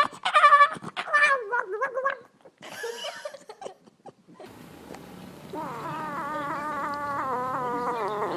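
A cat making long, wavering meows: loud calls in the first second and a half, then one long drawn-out call of about three seconds near the end.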